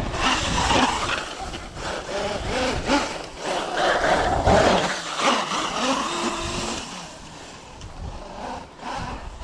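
Large electric RC truck being driven hard over dirt, its motor whining and revving unevenly as it slides and kicks up dust.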